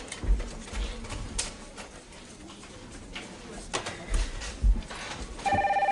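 A few soft thumps, then near the end a desk telephone starts ringing with a loud, trilling electronic ring.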